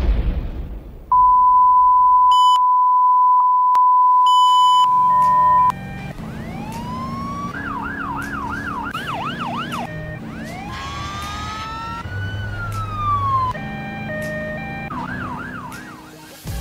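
Recorded sound effects played over a loudspeaker: a loud, steady high beep starting about a second in and lasting some four and a half seconds, then emergency sirens that wail and yelp, rising and falling in pitch and overlapping one another.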